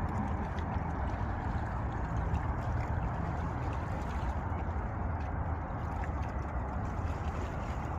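Steady outdoor ambience at a river's edge: an even rush of wind and moving water over a low rumble, with no single sound standing out.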